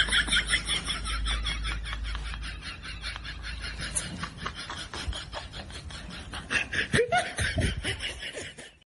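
Fast, high-pitched giggling laughter: a long, rapid string of short pulses that fades out near the end.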